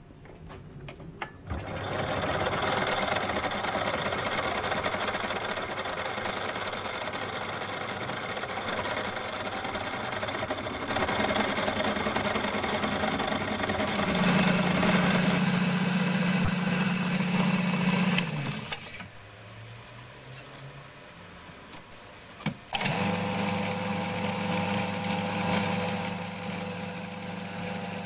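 Benchtop metalworking machine motors running: a mini lathe switches on about a second and a half in and runs steadily, then a mini milling machine runs while machining a cast handwheel. About two-thirds of the way in the machine stops, and it starts again a few seconds later.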